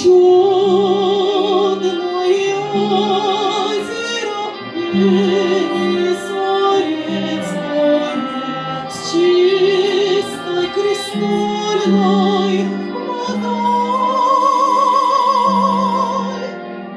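A woman singing solo in a classical, operatic style with strong vibrato, accompanied by bells ringing low notes that change about once a second.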